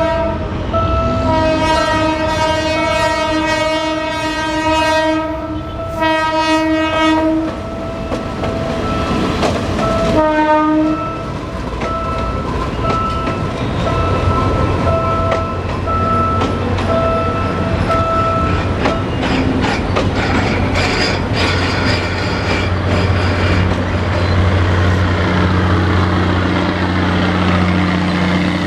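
Diesel passenger train of the Philippine National Railways sounding its horn in long blasts, then short evenly spaced tones about once a second. Toward the end a steady low engine rumble builds as the train runs by, wheels clattering on the rails.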